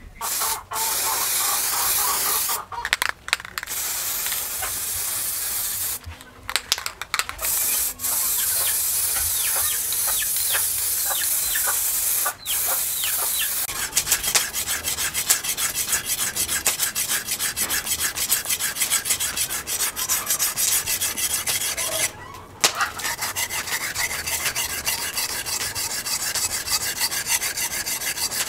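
Steel knife blade, forged from spring steel, being sharpened by hand on a wet whetstone: a steady scraping of metal on stone with a few short breaks, then from about halfway quick, even back-and-forth strokes.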